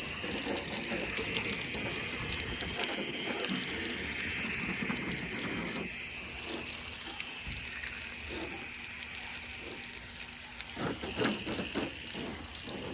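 Garden hose spraying water onto a car wheel, rinsing off the dirt: a steady hiss of spray.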